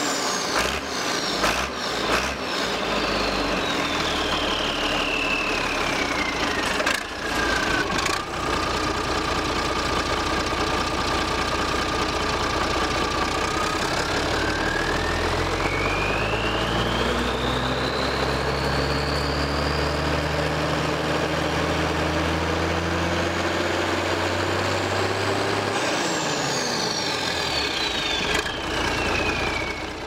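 Zetor 12145 Turbo tractor's six-cylinder turbo diesel engine dropping from high revs to idle over the first several seconds, idling, then revving slowly up and holding high before falling off again near the end. The turbocharger's high whistle falls, holds, climbs and falls with the revs.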